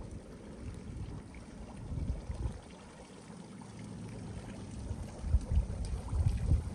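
Wind buffeting the microphone in irregular low gusts, strongest near the end, over a faint trickle of water.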